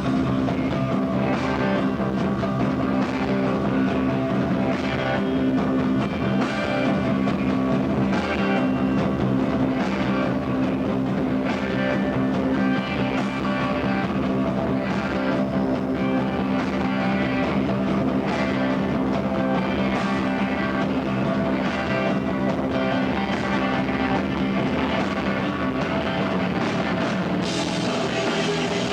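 A rock band playing live, with electric guitars and a drum kit.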